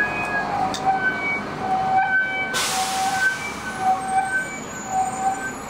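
Theremin played by hand: a string of short, separate held notes near the same middle-high pitch, each with a slight waver. A brief burst of hiss cuts in about two and a half seconds in.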